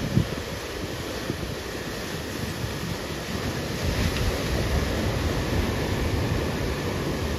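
Ocean surf breaking and washing onto the beach, with wind buffeting the microphone as a low, gusting rumble that grows stronger about halfway through. A brief thump just after the start.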